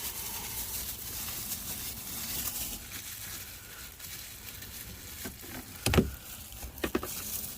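Hands prying out plastic push clips and working a plastic engine-bay cover loose: rustling and scraping, with one sharp knock about six seconds in and a few lighter clicks after it.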